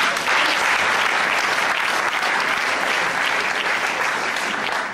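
Theatre audience applauding: dense, steady clapping from a full hall that starts at once and stops at the very end.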